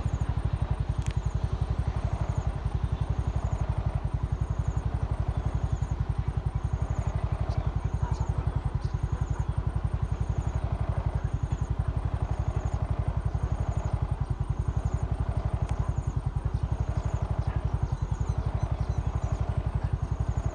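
An engine idling with a steady, even low throb that does not change, together with short high chirps repeating about once a second.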